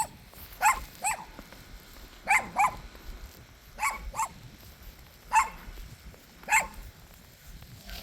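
Dog barking: about eight short, sharp barks, mostly in pairs, with pauses of a second or so between.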